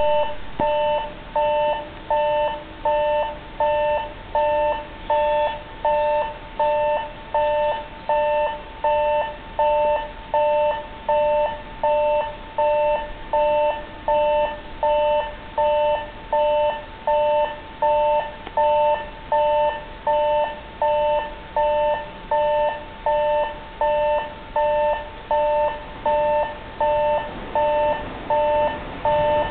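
Railway warning bell ringing about once a second, each stroke a two-tone electronic clang that fades before the next, warning of an approaching train.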